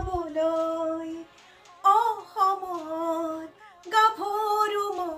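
A woman singing a slow melody, holding long notes, with short breaks between phrases.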